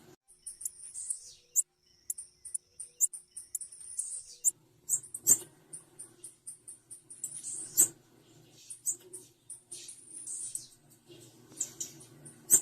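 Female blue-black grassquit (tiziu) calling: quick, irregular runs of very high, thin chips and squeaks. A low hum comes and goes underneath from about halfway through.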